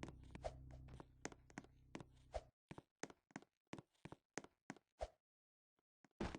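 A rapid series of short, sharp clicks, about three to four a second, over a low steady hum that cuts out about two and a half seconds in; after that the clicks stand against silence, with a louder cluster near the end.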